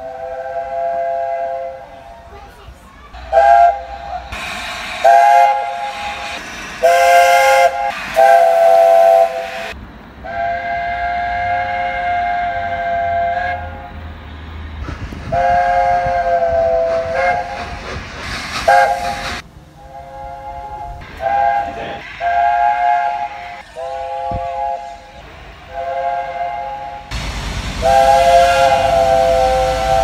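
Train horns sounding a string of about fifteen blasts of a three-note chord, some short toots and some held for a few seconds, with the rumble of a train beneath in places.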